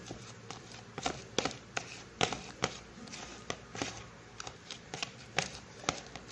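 Plastic scraper stirring and pressing a wet, sticky paste of minced beef and egg white in a plastic bowl: irregular soft taps, clicks and squelches, a few a second.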